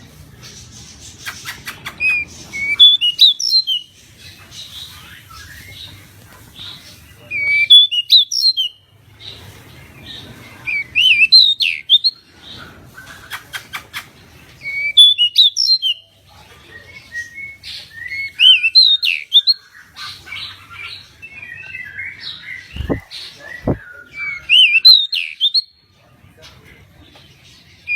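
Pied bushchat singing in full song: short, fast phrases of gliding whistled notes, repeated every two to three seconds.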